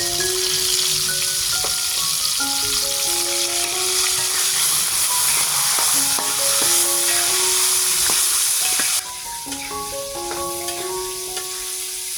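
Food frying in hot oil: a loud, steady sizzle that turns noticeably quieter about nine seconds in. Background music with soft, melodic mallet-like notes plays throughout.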